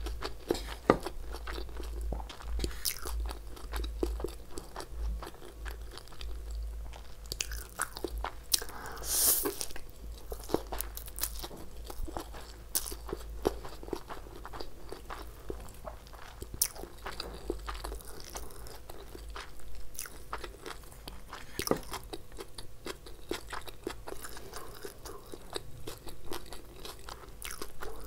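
Close-miked chewing of stir-fried chowmein noodles with shredded cabbage and capsicum: soft crunching, with many small wet mouth clicks.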